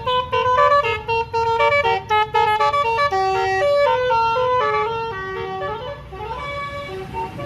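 Bus's multi-tone Basuri 'telolet' horn playing a quick melody of stepped notes over a low rumble, the tune fading out about six seconds in.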